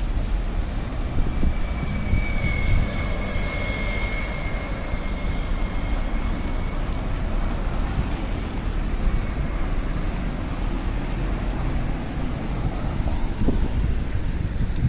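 Outdoor city street noise: a steady low rumble of passing traffic, with a faint high whine from about two seconds in that fades out several seconds later.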